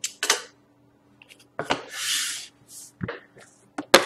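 Cardboard boxes of trading cards being handled on a wooden tabletop: scattered light knocks and taps, a brief hiss about two seconds in, and a sharper knock near the end as a box is pulled down from the stack.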